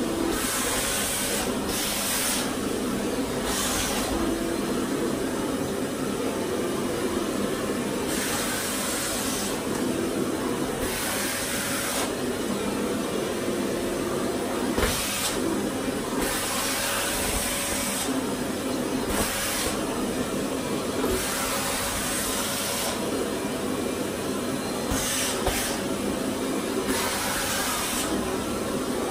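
Sauber vacuum cleaner running with its hand nozzle worked over curtain fabric. A steady motor hum runs under an airy hiss that rises and falls every second or two.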